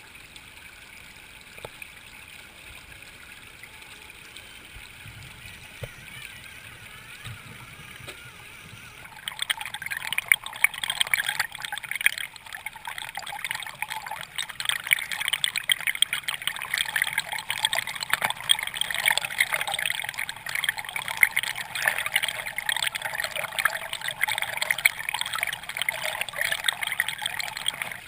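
Shallow rocky creek running over stones, heard with the microphone right at the water's surface. About nine seconds in it turns much louder and splashier, as the water breaks over a small riffle beside the microphone.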